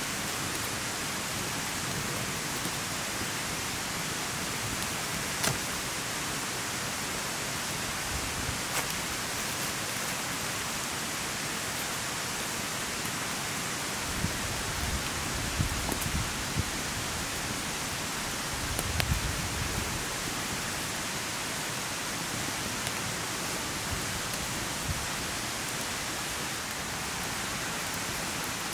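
Wood campfire burning with a steady hiss, with sharp crackles and pops now and then. A few dull knocks come as the burning wood is stirred with a stick.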